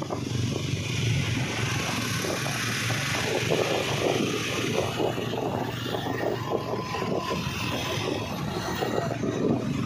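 Motorcycle engine running at a steady cruising speed, mixed with wind and road noise rushing over the rider's microphone.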